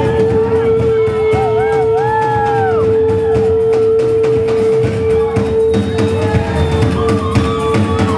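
A live rock band playing loudly with drums, electric guitar and bass. One note is held steady throughout while bending notes wind above it over a busy drum beat.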